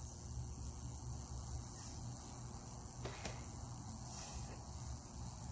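Microwave-oven transformer of a fractal wood burner running with a steady low electrical hum, under a faint hiss as the high-voltage current burns through the wet wood.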